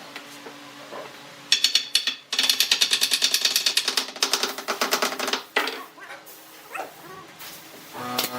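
A quick run of sharp taps or clicks, about five a second, starting about a second and a half in and lasting about four seconds, from hand work on a piece in a woodworking shop. A steady hum comes in near the end.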